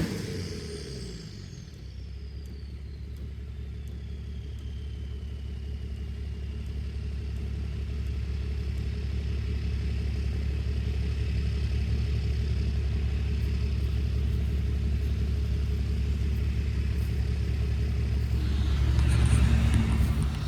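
Pickup truck engine running steadily, its low hum slowly growing louder, with a high whine falling in pitch over the first few seconds; the truck's engine fan has just struck its shroud and sent a piece through the radiator.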